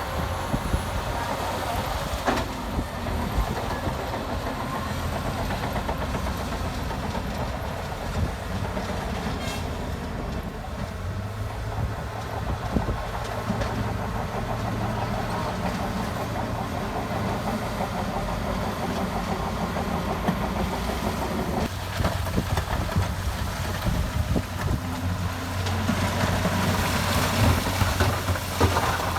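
Shantui DH17C2 crawler bulldozer at work: the diesel engine runs steadily under a continuous clanking rattle of tracks and pushed stone, and grows louder near the end.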